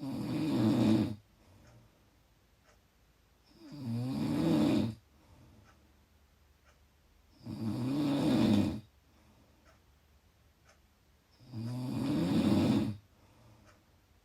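Loud snoring: four long snores at an even pace, about four seconds apart and each a little over a second long, with quiet breathing between them.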